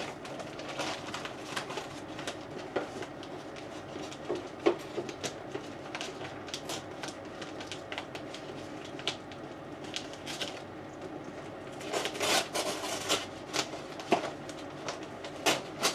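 Cardboard box and packing material being handled: scattered rustling with short taps and knocks, busier about twelve seconds in.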